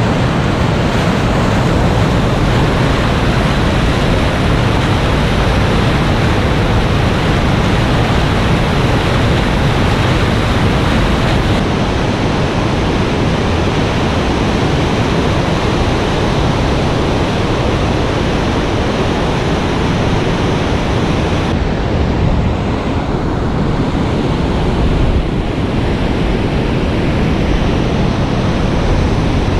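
Whitewater rapids on a large river: a loud, steady rush of churning water, heavy in the low end, with no breaks.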